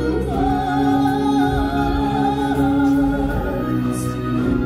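Stage-show music: a singer holds a long, wavering note over a sustained accompaniment.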